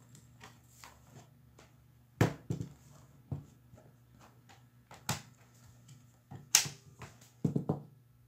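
Hard plastic knocks and clicks of a laptop being handled on a table: it is turned over and its battery is unlatched, slid out and set down, in scattered sharp taps, the loudest about two, five and six and a half seconds in and a quick cluster near the end. A faint steady low hum runs underneath.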